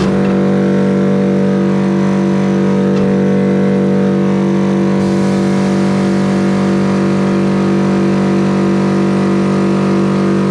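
Electric motor of the tire-shop machinery running with a loud, steady hum that holds one pitch throughout.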